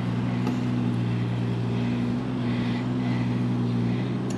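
Diesel engine of a compact earthmoving machine running steadily, with an even low hum, while backfilling a trench. A few light clinks come near the end.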